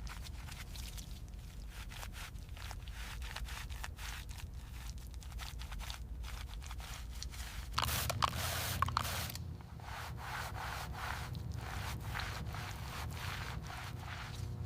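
Microfiber cloth rubbing over a surface in quick back-and-forth strokes, wiping off dust and oxidation. The strokes grow louder for a moment a little over halfway through.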